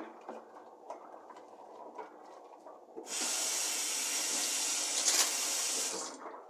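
Kitchen sink tap turned on, water running into the sink in a steady hiss for about three seconds and then shut off, after a few light knocks of things being handled.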